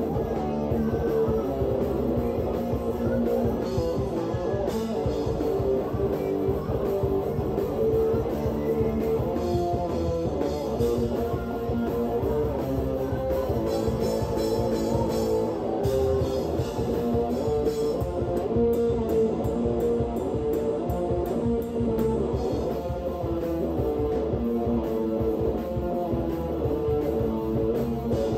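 Rock band playing live: a drum kit beaten steadily together with electric guitar, a continuous loud rock song.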